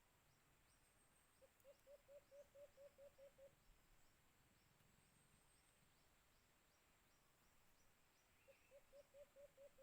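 White-eared brown dove calling faintly: a quick run of about ten short, low hoots, about five a second, then a second run starting near the end.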